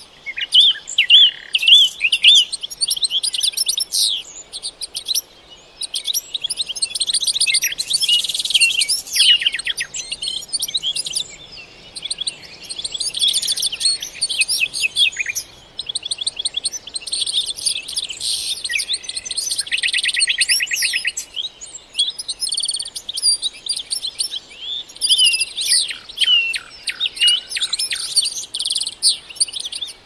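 Several songbirds singing: quick chirps, rapid trills and repeated-note phrases that come in bursts with short pauses, over a faint steady background hiss.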